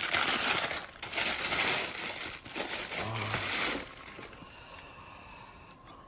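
Sneaker box being opened by hand: cardboard and paper rustling and crinkling loudly for about four seconds, then dropping to a faint rustle.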